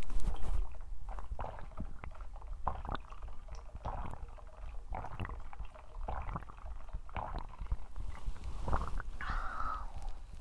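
A person drinking: a run of swallowing gulps about one every half second to second, over a low steady rumble. Near the end comes a longer gurgle.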